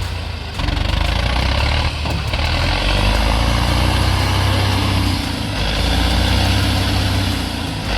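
Heavy machine engine running steadily with a deep rumble, dipping briefly a few times.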